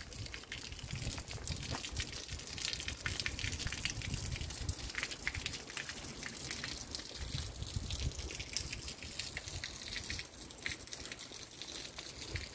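Water running from a stone spout in a wall and splashing into the channel below, a steady trickling hiss with many small drips from the rain.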